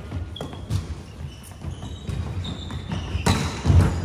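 A ball bouncing repeatedly on an indoor court, with short high squeaks of shoes on the floor between the bounces.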